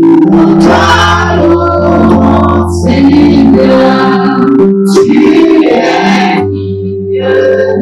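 Live gospel worship song: several voices, a woman's among them, singing over keyboard accompaniment with long held bass notes.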